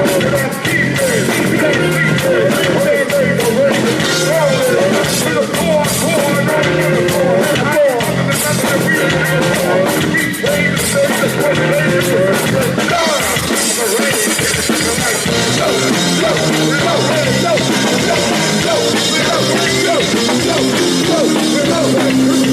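Rock band playing live during a sound check: drum kit with frequent cymbal and drum hits over electric guitar and bass, loud, with a little singing.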